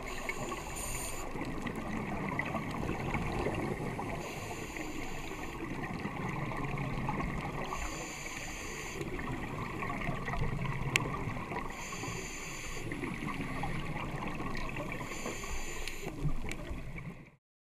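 Scuba regulator breathing underwater, heard through a GoPro's waterproof housing: a hiss of inhalation about every four seconds, with lower rumbling exhaled bubbles between, over steady muffled underwater noise. The sound cuts off suddenly near the end.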